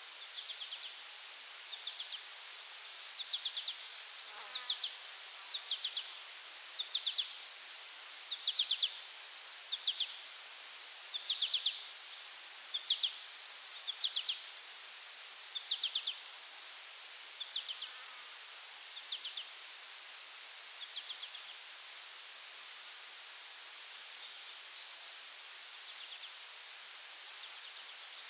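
Forest insects: a steady high-pitched buzzing drone, with a short chirping trill repeated about once a second that stops about two-thirds of the way through.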